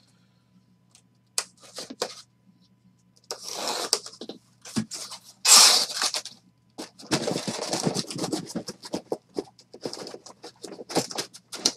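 Cardboard shipping case being slit open with a box cutter and handled: a few sharp scraping, tearing bursts of cardboard and packing tape, then rustling and scattered knocks as the case is turned over.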